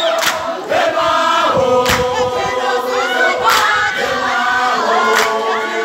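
Crowd singing together in chorus, many voices at once, with a sharp beat from the crowd in unison about every second and a half.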